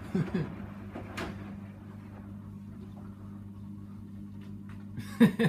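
Hoover Dynamic DYN 9164 washing machine running mid-programme on its Rapid 30 wash, a steady low hum with a single click about a second in.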